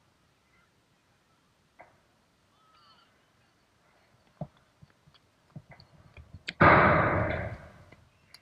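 Faint, scattered knocks of tennis balls being hit on a distant court. About two-thirds of the way in comes a sudden loud crash close to the microphone, which fades away over about a second and a half.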